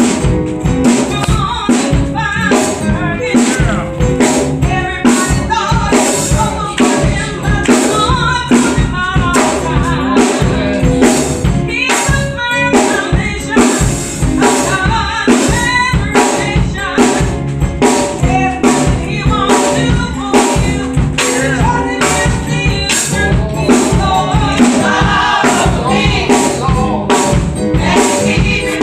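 Gospel music: voices singing together over a drum kit keeping a steady beat.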